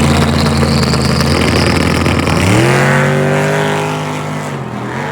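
Drag race car's engine at full throttle down the strip. The pitch holds steady, breaks off, then climbs again about two and a half seconds in, as at a gear change, and the sound fades as the car pulls away.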